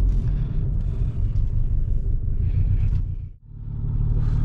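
VW Golf Mk5 GTI's BWA 2.0-litre turbo four-cylinder engine running while the car is driven, a steady low rumble; the engine has no compression in one cylinder and shakes badly. The sound briefly dips away about three seconds in.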